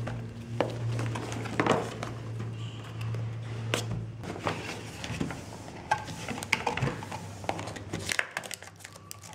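Cardboard phone box being handled and opened: scattered clicks, scrapes and taps as the seal sticker is slit and the lid is lifted. Quiet background music runs underneath.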